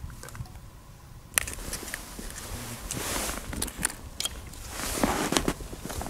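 Snow crunching and a padded winter suit rustling as someone shifts while kneeling on the ice, with a sharp click about a second in and two louder bursts of crunching later on. Low wind rumble on the microphone lies underneath.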